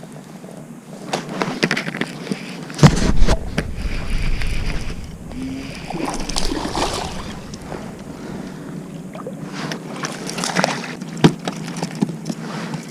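Water sloshing and splashing around a small fishing boat, with scattered knocks of handling in the boat and one heavy low thump about three seconds in.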